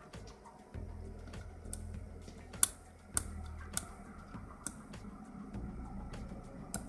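Small sharp metallic clicks and ticks, irregularly spaced, from a hook pick working the pins of a Sterling 5-pin euro cylinder under tension; one click about two and a half seconds in is the loudest. A low hum comes and goes underneath.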